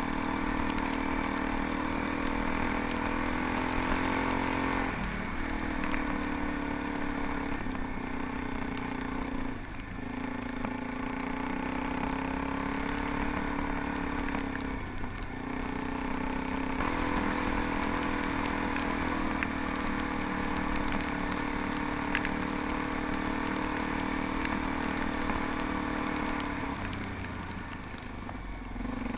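Suzuki DR-Z400E single-cylinder four-stroke engine running under way on a dirt track, the note steady most of the time and dropping briefly several times before picking up again, with scattered faint ticks.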